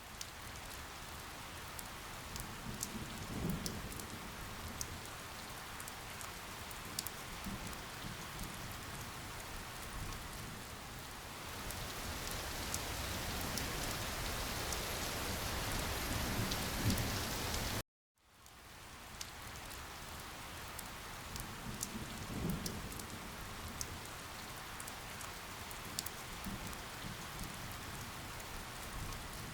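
Steady rain falling, with scattered drop ticks and a few soft low rumbles. About 18 seconds in, the rain track cuts out for a moment and fades back in as the recording loops.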